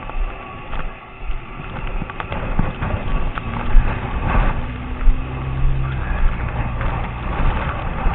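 Wind buffeting the microphone, with irregular crunching steps in snow. A low, steady engine hum comes in about a third of the way through and fades near the end, as a vehicle passes.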